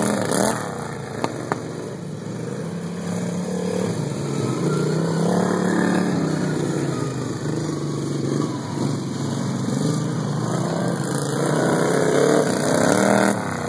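Several racing lawn tractors' small engines running hard around the track, their pitches wavering up and down as they throttle through the turns and louder again near the end as they come closer. Two brief clicks just over a second in.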